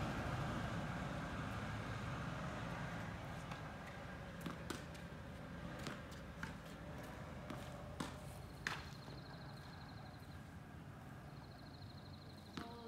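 Tennis rally on a hard court: several sharp knocks of the ball off racket strings and the court surface, a second or so apart. Under it a low rumble fades away over the first few seconds.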